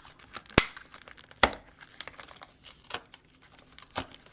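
A mechanical pencil set's packaging being opened by hand: soft crinkling and tearing, broken by a few sharp snaps, the two loudest within the first second and a half.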